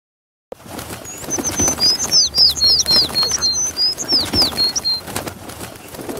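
Outro sound effect of birds tweeting, a rapid string of short, mostly downward-sweeping chirps over a fluttering of wing flaps. It starts abruptly about half a second in, and the chirping stops about a second before the end while the fluttering goes on.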